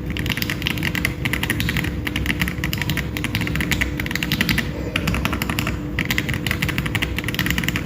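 Typing on a mechanical keyboard fitted with franken linear switches built from Akko Jelly Blue and Jelly White parts: a fast, continuous stream of keystroke clicks, with brief breaks about five and six seconds in.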